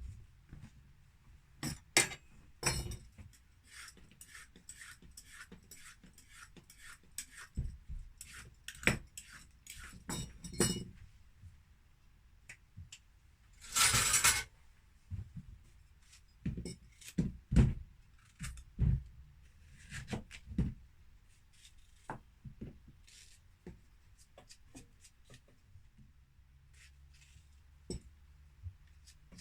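Kitchen utensils, crockery and glass clinking and knocking irregularly during food preparation in a small galley, with one short hiss about fourteen seconds in.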